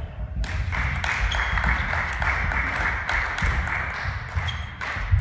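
Table tennis balls clicking off bats and tables, with several sharp ticks and small ringing pings scattered through, over a steady hissing noise that starts about half a second in and stops near the end.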